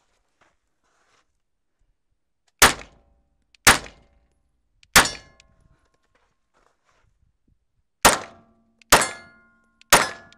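Springfield XD(M) 9mm pistol fired six times, in two groups of three shots about a second apart. Each shot has a short ringing tail.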